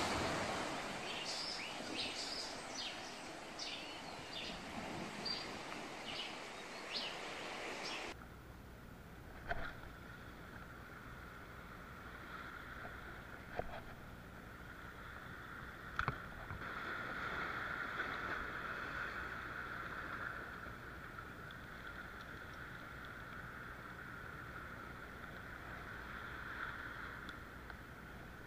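Sea waves and wind, with short high chirps over them. About eight seconds in the sound cuts to something much quieter, with a few sharp clicks and, later, a faint steady hum.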